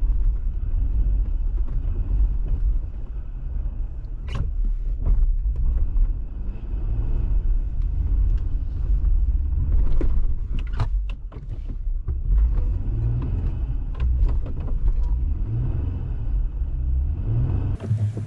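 Jeep driving along a snow-covered trail: a steady low rumble of engine and tyres, with a few sharp knocks around four to five seconds in and again around ten to eleven seconds.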